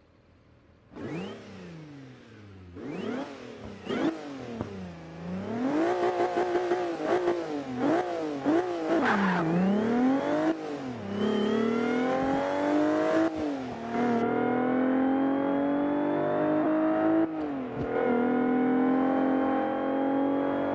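Audi S4's supercharged V6 revved in a series of quick blips, pitch rising and falling, starting about a second in; then it accelerates hard, the engine note climbing steadily and dropping twice at upshifts.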